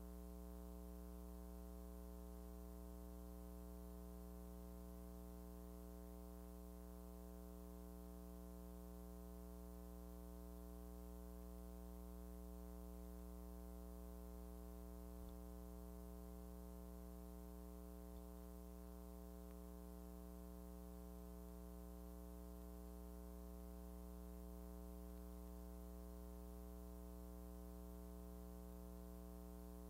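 Faint, steady electrical hum with a row of evenly spaced overtones, unchanging throughout; no other sound is on the track.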